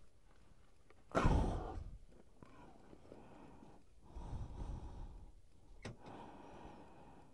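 A person's heavy breaths close to the microphone: a loud sigh about a second in and a softer one around four to five seconds, with a sharp click just before six seconds.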